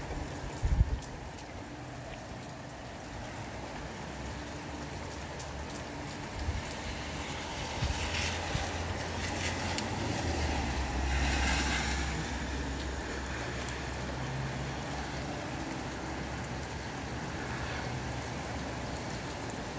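Rain falling steadily with gusty wind rumbling, swelling louder about ten to twelve seconds in. A short thump sounds about a second in.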